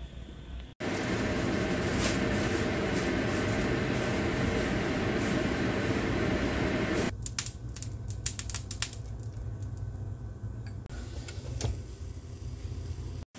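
Kitchen cooking sounds: a loud steady rushing noise for about six seconds, then a quieter stretch with a run of light clicks and clinks.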